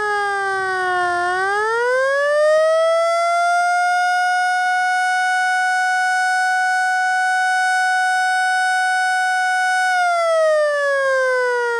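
Federal Signal Model L eight-port electromechanical siren sounding a mock attack signal. Its tone winds down, climbs back up within a couple of seconds, and holds steady for about seven seconds. It then starts winding down again near the end.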